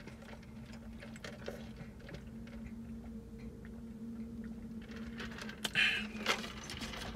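A man drinking lemonade through a straw from a large paper drink cup: quiet sips and small cup clicks, then a brief louder slurp and rattle of the cup about six seconds in as the cup is tipped up, over a steady low hum.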